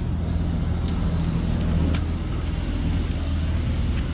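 Steady low engine rumble, with a faint steady high tone above it. A couple of light plastic clicks come as AA batteries are fitted into a toy train tender's battery compartment, one about two seconds in.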